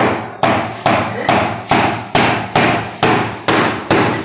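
A hammer striking repeatedly at a steady pace, about two blows a second, each blow sharp with a short ring after it.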